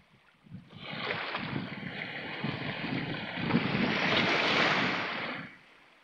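A small sea wave washing in over shoreline rocks: a rush of surf that starts about a second in, swells, and then drains away shortly before the end.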